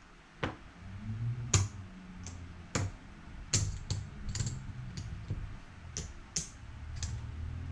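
Casino chips clicking and clacking together as they are counted out and stacked on the felt of a craps table, a dozen or so sharp, irregular clicks.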